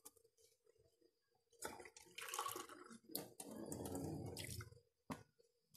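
Water splashing and dripping in short spells, with a few light clicks, as water and cornstarch are handled in a drinking glass for a sauce thickener.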